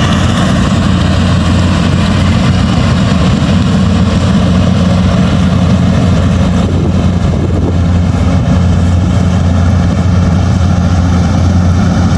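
Rice combine harvester's engine running loudly and steadily, with a low hum whose sound shifts slightly about two-thirds of the way through.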